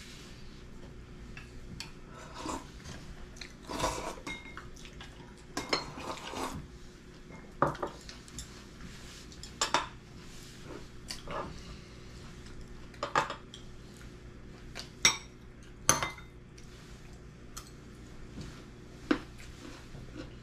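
Chopsticks and a spoon clinking and tapping against ceramic and wooden bowls during a meal: a dozen or so short, irregular clinks over a faint steady hum.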